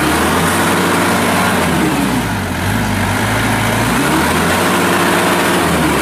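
New Holland TC55DA compact tractor's diesel engine running as the tractor drives, its engine speed rising and falling twice.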